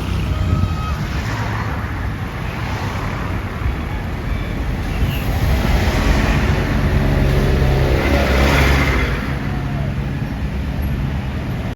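Street traffic with a heavy vehicle's engine rumbling past, louder from about six to nine seconds in.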